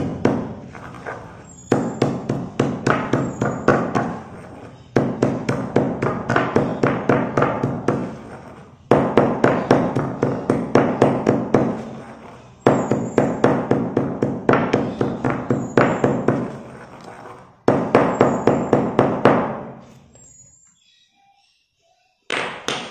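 A pestle pounds slate pencil pieces in a stone mortar, crushing them to powder. It gives rapid thuds at about three to four strokes a second, in runs of a few seconds with short breaks. The pounding stops about 20 seconds in, and one brief sharp sound comes near the end.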